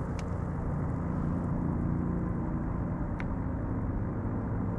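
Steady low motor hum, an even drone holding one pitch, with a couple of faint clicks.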